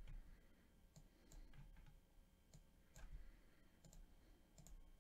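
Faint, irregular clicking from a computer mouse and keyboard while a spreadsheet is being edited, a few scattered clicks each second.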